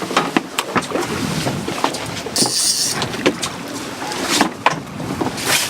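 Irregular knocks and clicks, with a short burst of hissing noise a little before halfway.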